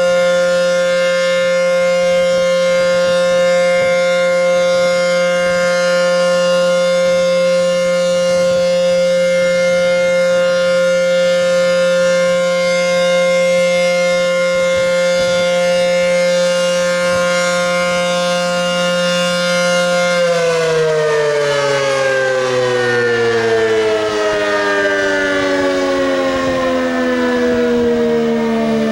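ACA P-15 outdoor warning siren sounding a steady alert tone at an even loudness, not sweeping, because its rotator is broken. About two-thirds of the way through, the pitch begins falling smoothly as the siren winds down.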